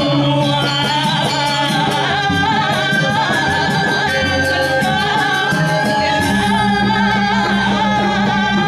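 Balinese gamelan playing live for a Telek masked dance, with bronze metallophones and gongs ringing in sustained tones. A fast run of even strikes comes through in the middle, and a new low note enters about six seconds in.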